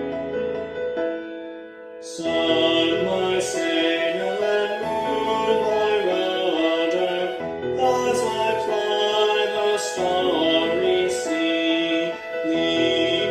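A hymn sung to keyboard accompaniment: about two seconds of instrumental lead-in, then the singing comes in and carries on over the accompaniment.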